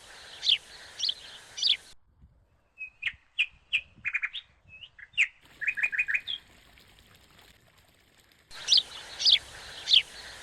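Birds chirping: a clear call that sweeps downward, repeated about every half second near the start and again near the end, with shorter quick chirps and a brief trill in between.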